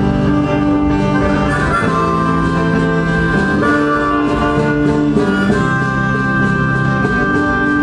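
A band playing an instrumental passage: a melody of long held notes that changes every second or two, over a steady accompaniment.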